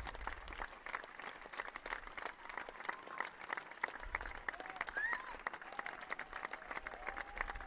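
Audience applauding: a dense, even patter of many hands clapping, with a few brief voices calling out over it in the second half.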